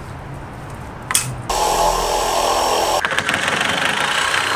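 Corded Sawzall reciprocating saw starting up about a second and a half in, then cutting through black ABS pipe from about three seconds in with a rapid, even rasp of blade strokes.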